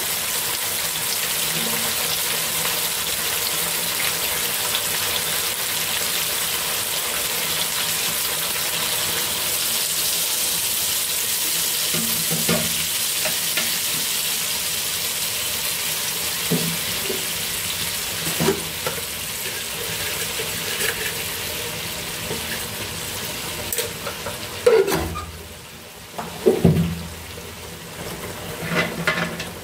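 Pork and tomato wedges sizzling and bubbling in a nonstick frying pan, a steady hiss with a few short utensil knocks. The hiss drops away about 25 seconds in, followed by a few louder knocks.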